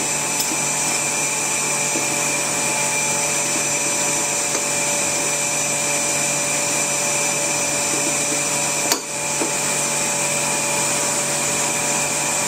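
Vacuum pump running steadily, a hum with several steady tones and a high hiss, holding vacuum on a resin infusion bag. About nine seconds in there is a single sharp click as locking pliers snap shut on the resin hose.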